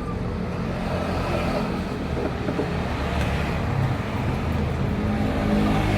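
Steady motor vehicle engine rumble, like motorbikes and cars running nearby, with a low engine hum that grows a little about five seconds in.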